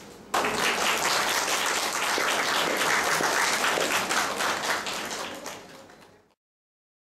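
Audience applauding, starting abruptly a moment in and fading out near the end into silence.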